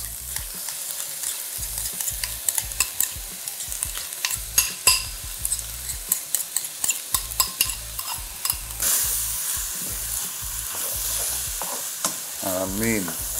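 Ground beef with onion and sweet peppers sizzling in a frying pan while being stirred with a spoon as sauce is worked in, with many short clicks of the spoon against the pan. About nine seconds in, the sizzle grows louder.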